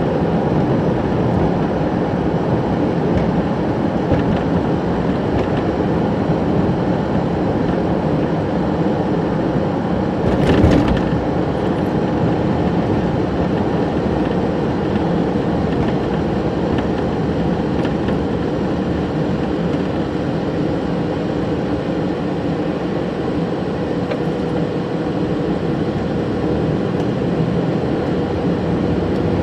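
Steady road and engine noise inside a moving vehicle's cab, tyres running on a wet, slushy road. About ten seconds in there is one brief louder rush.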